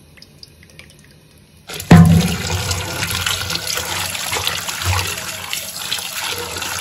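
Kitchen tap running into a steel pot of cut potato fries in a steel sink while a hand swishes and rubs them clean. The water comes on suddenly about two seconds in with a knock and then runs steadily.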